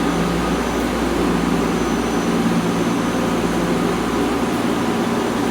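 Steady, loud airport background noise: an even rushing hum of machinery and moving air, with no break or change.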